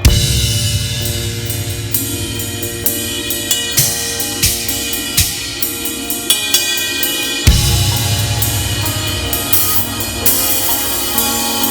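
Gretsch USA Custom drum kit played over a music backing track: kick, snare and cymbals, with big crashes together with the kick at the start and again about seven and a half seconds in.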